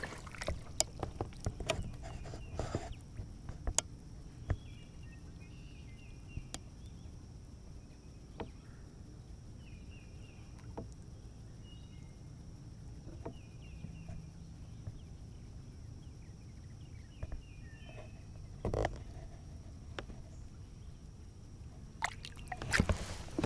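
Water lapping and sloshing against the side of a kayak while a largemouth bass is held in the water by hand and released. Scattered small splashes and knocks come through, with brief louder splashes about nineteen seconds in and again near the end.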